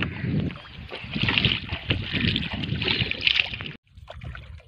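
Lake water sloshing and splashing at a rocky shore, with wind rumbling on the microphone. There are louder splashy bursts about a second in and again around three seconds, and the sound drops out briefly near the end.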